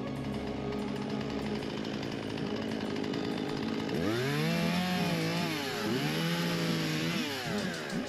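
Chainsaw revving up and down several times from about halfway through, over background music.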